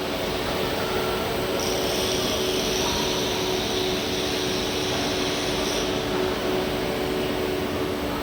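Morara grinding machine running with a steady machine hum; a higher hiss joins from about a second and a half in and stops at about six seconds.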